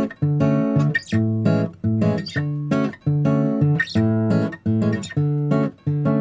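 Background music: acoustic guitar chords strummed in a steady rhythm.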